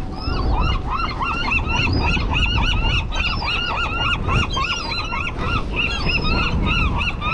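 A flock of birds calling, with many short, arched calls repeating several times a second and overlapping. Wind rumbles on the microphone underneath.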